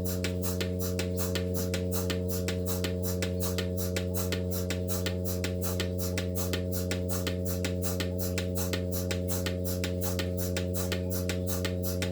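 Milking machine running: a steady hum with a rapid, even pulsing of about four or five beats a second.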